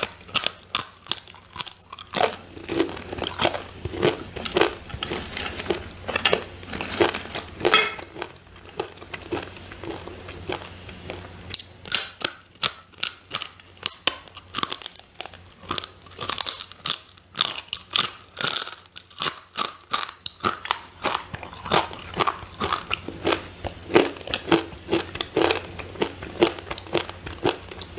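Crispy fried sweet potato chips being bitten and chewed: runs of sharp crunches, several a second, with short pauses between mouthfuls.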